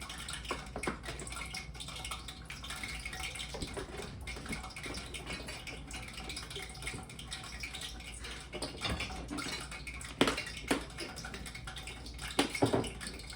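Light kitchen handling sounds as flour is measured out into a bowl: soft scraping and rustling with small clicks, and a few louder knocks about ten and twelve and a half seconds in.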